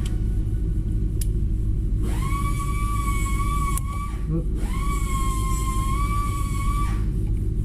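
Steady low machine hum, with a whine that cuts in about two seconds in, drops out just before four seconds, and returns for another two seconds or so, gliding up in pitch each time it starts.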